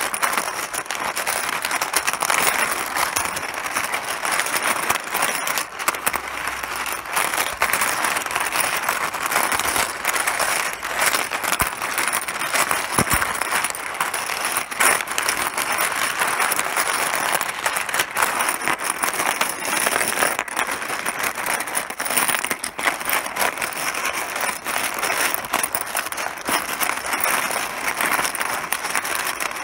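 Mahjong pieces clattering: a dense, continuous stream of small hard clicks.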